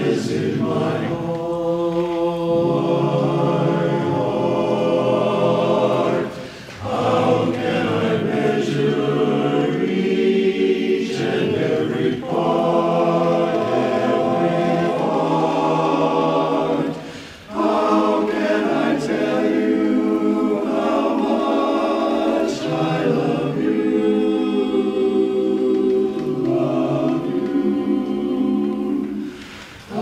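Men's barbershop chorus singing a cappella in close harmony, holding sustained chords, with short breaks in the sound about six seconds in, around seventeen seconds, and just before the end.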